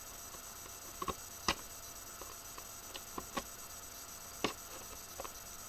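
Scissors snipping and working at tape on cardboard toy packaging: a scattered series of short clicks and snips, the sharpest about a second and a half in and again near four and a half seconds.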